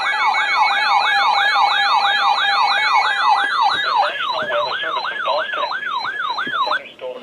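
Electronic siren-type alert tone: rapid rising-and-falling pitch sweeps repeating about two and a half times a second, with a steady tone beneath them for roughly the first half. It cuts off suddenly near the end.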